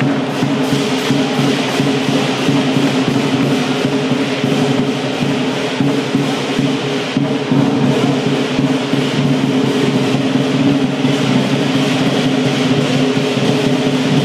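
Chinese lion dance percussion playing continuously: a drum beating a fast, steady rhythm with clashing cymbals over it.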